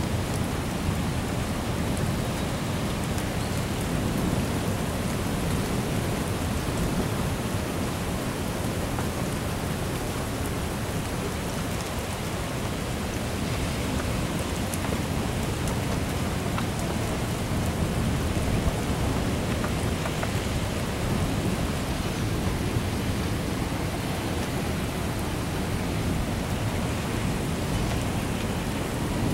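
Heavy rain falling steadily in a thunderstorm, with a continuous low rumble underneath.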